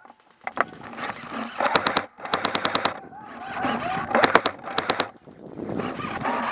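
Airsoft guns firing in several short, rapid bursts of sharp pops, at about ten shots a second, with rustling movement in between.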